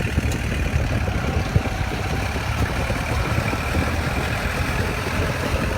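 Kubota L4708 tractor's diesel engine running steadily.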